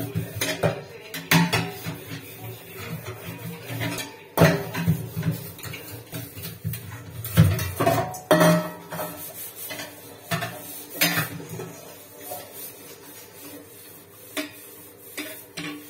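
Stainless-steel utensils clanking against each other and the sink as they are washed by hand: irregular knocks and scrapes with a short ringing tail. The loudest knocks come about four and seven and a half seconds in.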